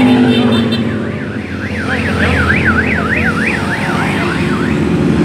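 A motorcycle goes past and its engine fades, then a siren-like warble sweeps rapidly up and down, about three times a second, for some three seconds over the rumble of motorcycle engines. More motorcycles come through near the end.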